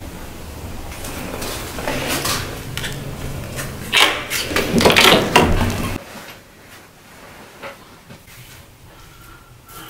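Hotel room door being unlocked with a key card and opened: clicks and knocks from the lock and handle, loudest about four and five seconds in, then quiet room tone.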